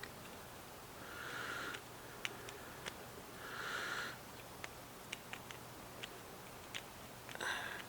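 Small scattered clicks of a homemade lock pick and tension wrench working the pins inside a trailer hitch lock, with three short breaths through the nose as the loudest sounds: about a second and a half in, about four seconds in and near the end.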